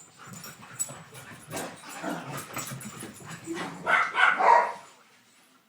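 Dogs barking and yipping excitedly during a chase, loudest about four seconds in, then stopping about five seconds in.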